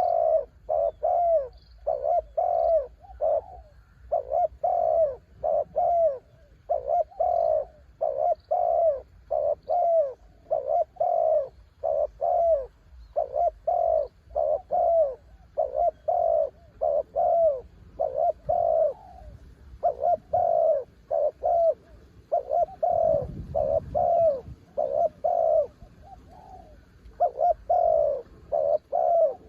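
Spotted dove cooing over and over, a steady string of short low coos about two a second with brief gaps. Faint chirps of small birds sit above it, and wind rumbles briefly about two-thirds of the way through.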